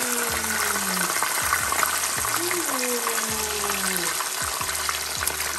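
Whole red snapper deep-frying in hot oil in a pot: a steady sizzling and crackling. A low tone slides down twice over it, near the start and about halfway.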